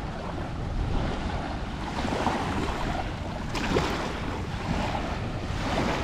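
Sea waves washing onto the beach, a wash swelling every couple of seconds, with wind noise on the microphone.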